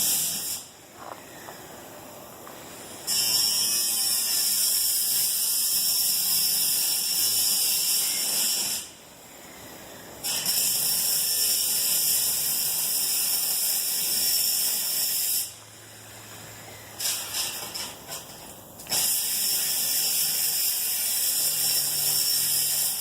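Angle grinder cutting sheet metal in several long runs of high hissing, each several seconds long, stopping and starting with short quiet gaps between.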